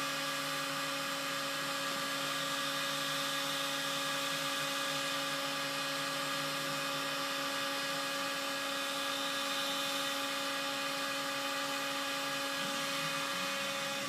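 Electric heat gun running at a steady pitch, its fan motor giving a constant hum and whine over an airy hiss as it blows hot air onto a circuit board to soften the conformal coating.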